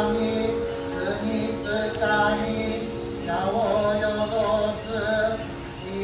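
Music: a slow melody of held, sliding notes over a steady drone.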